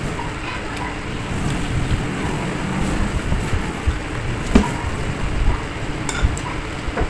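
Eating sounds: chewing, with chopsticks working in a foil tray and a few small clicks, one sharper click about four and a half seconds in, over a steady low rumble.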